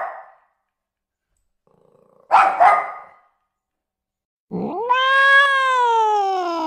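Domestic cat calling: a short harsh call a couple of seconds in, then, after a silent gap, a long meow that rises and slowly falls in pitch.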